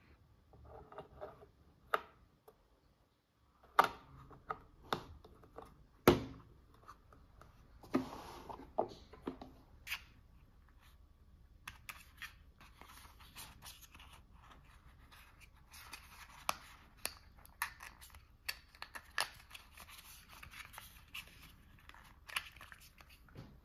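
Small objects being handled by hand: scattered sharp clicks and taps, the loudest about four and six seconds in, with stretches of rustling and scraping in between.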